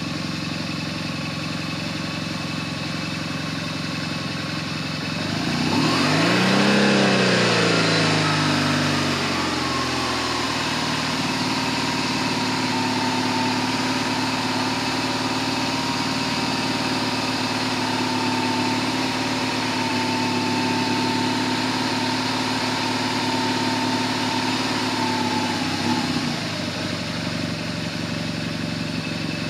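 BMW GS boxer-twin engine idling. Its note rises and falls about six to ten seconds in, then a steady higher hum holds until it stops about 26 seconds in.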